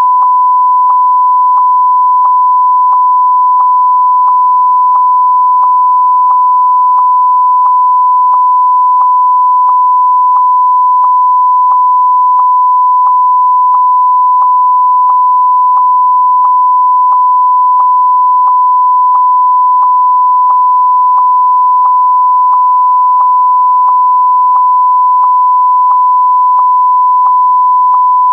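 Censor bleep: a single steady 1 kHz sine tone held without a break, with faint regular clicks about one and a half times a second.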